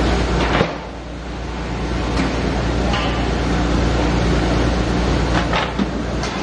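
Three-roll plate bending machine running with a steady low hum as a steel sheet is rolled into a cylinder shell, with a few sharp clicks and scrapes of the sheet metal. The hum drops away about half a second in and builds back up over the next second or so.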